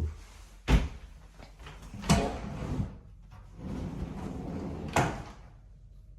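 Doors or cupboard fittings being opened and shut: a sharp knock about a second in, another around two seconds, and a last one near five seconds, with a sliding rumble in between.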